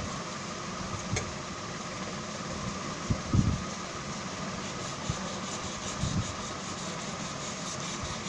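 Steady whir of a room fan, with a few low thumps, the loudest about three seconds in.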